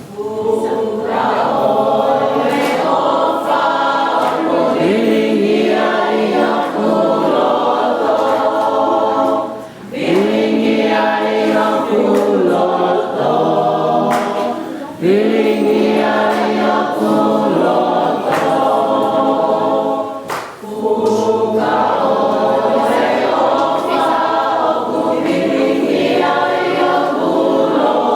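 Gospel vocal group singing in several-part harmony, in long phrases with brief breaks about 10, 15 and 20 seconds in.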